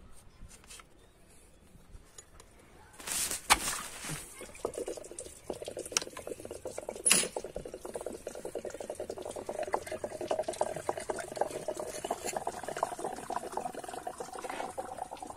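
Engine coolant trickling and running out of the opened thermostat housing of a VW Golf 5 BKD diesel engine as the thermostat comes out. The flow starts about four seconds in and goes on steadily. Before and near its start there are a couple of sharp knocks of parts.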